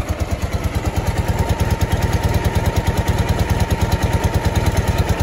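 1994 Ural motorcycle's flat-twin boxer engine idling through its single muffler, with a steady, even beat of exhaust pulses. Its valves tick, which the owner says only need adjusting, and to his ear the gears can be heard working too.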